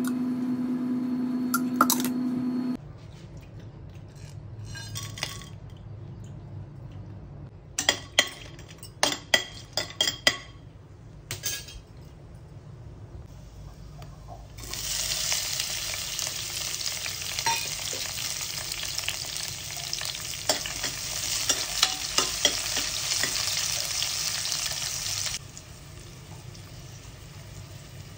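Hot oil in a pressure cooker with whole spices, sizzling loudly from about midway once sliced onions and green chillies are tipped in, with sharp clicks of a spoon against the pan over it. Before that there are a few clicks and clinks while the fat heats, and a steady hum for the first few seconds. The sizzle dies down near the end and picks up again as more vegetables go in.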